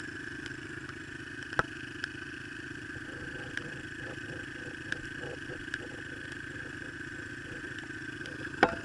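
Small dirt bike engine idling steadily, with a few light ticks and a short clatter near the end.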